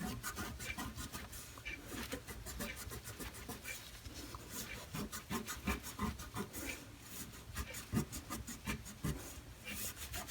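Hand scrubbing on the metal tray of an old toolbox: quick, uneven rubbing and scratching strokes, several a second, as a putty-like deposit is worked off.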